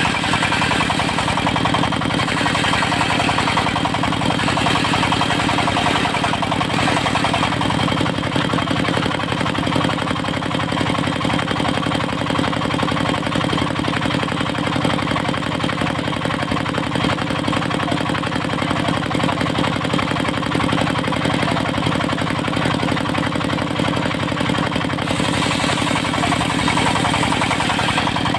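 Diesel engine powering a portable circular sawmill, running steadily with a fast, even beat.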